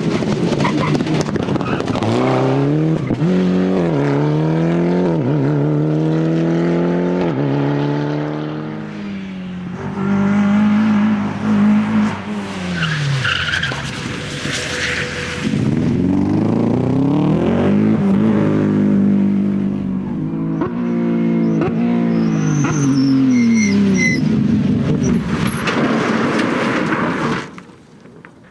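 Rally cars at full throttle on a stage, passing one after another. Each engine revs up hard through the gears, with quick drops in pitch at each shift, and the tyres squeal briefly. The sound cuts off suddenly near the end.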